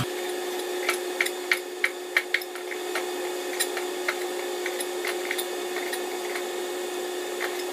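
Kitchen knife slicing firm raw meat on a cutting board: a run of short taps, quickest in the first two seconds and sparser after, over a steady hum. The meat is still hard, so each cut is forced through.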